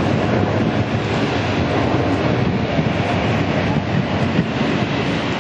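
Boeing 747-8's four GEnx jet engines at takeoff thrust during lift-off and initial climb: a loud, steady, rumbling roar.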